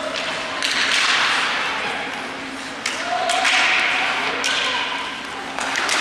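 Sharp knocks and thuds from play echoing in a large arena, about four of them, over a swelling hiss of background noise, with voices calling out.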